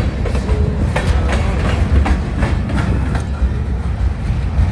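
Union Pacific freight train rolling past, its wheels clicking irregularly over rail joints above a heavy low rumble.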